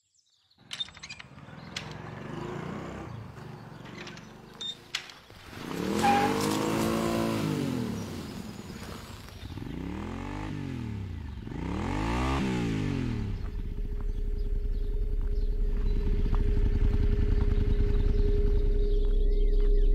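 Motorcycle engine revved three times, each rev rising and then falling in pitch, after a few light clicks. Then a steady low hum with a held tone builds louder near the end.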